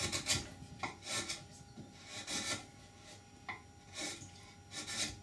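A freshly sharpened chisel paring across the end grain of a piece of wood: about five short slicing strokes, each a brief hiss, with a couple of small clicks of the blade between them. The edge cuts cleanly, lovely and sharp.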